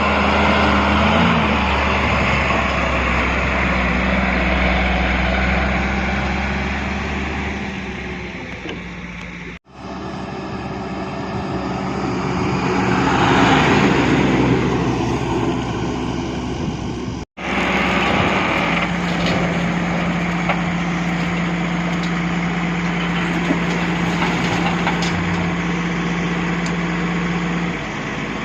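Diesel engine of a JCB 3DX backhoe loader running while it works, revving up to a peak about halfway through and easing back, then running at a steady pitch. The sound cuts out abruptly twice.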